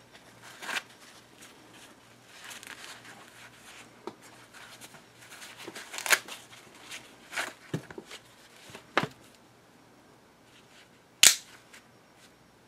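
Stiletto switchblade and its nylon sheath being handled: soft rustling and a scatter of light clicks, then one sharp, loud snap about eleven seconds in.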